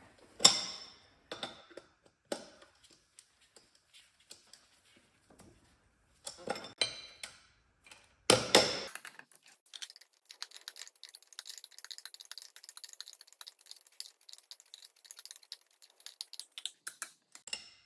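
Steel wrench and hydraulic hose fitting clinking as the fitting is threaded onto the hose: a few sharp metal clicks and clanks, the loudest a little past halfway, then several seconds of fine, rapid ticking.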